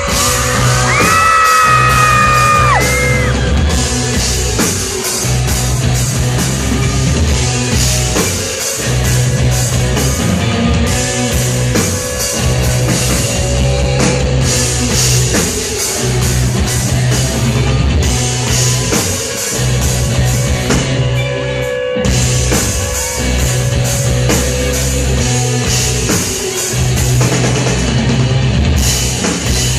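Loud live pop-rock music played through a concert sound system, with a heavy pounding beat, and a high-pitched scream from the crowd about a second in.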